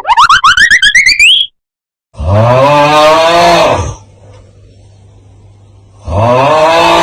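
A fluttering tone rises steeply in pitch for about a second and a half. Then a cow's moo plays twice, about four seconds apart: a low call of about two seconds that rises and falls, the same take each time.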